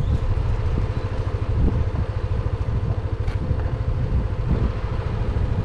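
Small motorbike engine running steadily while riding, with wind rumbling on the microphone.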